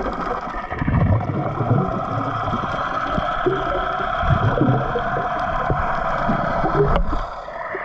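Boat engine droning, heard underwater as a steady hum with irregular low gurgles and knocks. Its pitch shifts slightly near the end.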